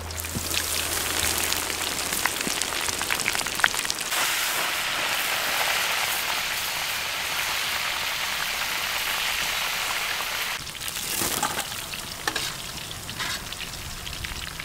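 Breadcrumb-coated mushrooms deep-frying in a large iron wok of hot oil: a dense crackling sizzle full of small pops. It grows louder about four seconds in and drops to a lighter crackle after about ten seconds.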